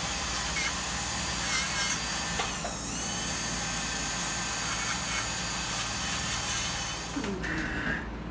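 Dental drill (handpiece) running against the front teeth, a steady high whine that briefly dips in pitch about three seconds in, as if under load. It stops about seven seconds in.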